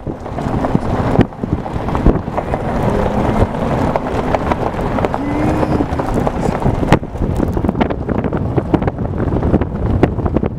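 Loud wind buffeting the microphone of a moving vehicle: a continuous rumble with crackling spikes, the noise that drowns the audio throughout.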